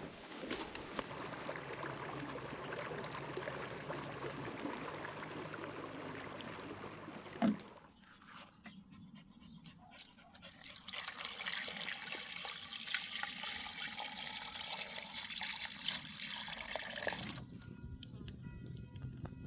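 Water trickling and pouring, with one sharp knock about seven and a half seconds in. Soft music tones come in near the end.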